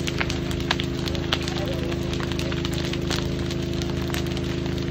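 A burning building crackling and popping, with scattered sharp snaps, over the steady drone of an engine running.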